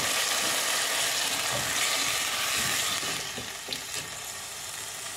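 Diced potatoes in tomato sauce sizzling in a hot pot with freshly added water, while a spatula stirs through them with a few soft knocks. The sizzle quietens about three seconds in.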